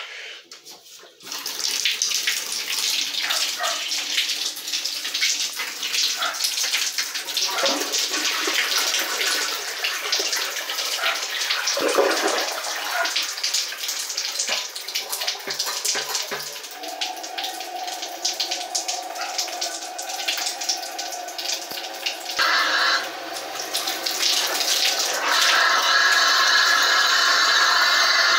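Air hissing and sputtering out of a shower spout while the water supply is still off. Crackly ticks run through the hiss. About two-thirds of the way through, a whistling tone comes in, and higher whistling tones join and grow louder near the end.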